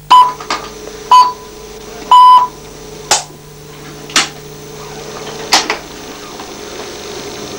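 Three 1 kHz pips from a radio receiver, about a second apart with the last one longer: the closing pips of the hourly time signal. Then three sharp clicks as switches on the amplifier and control box are flipped, over a steady electrical hum.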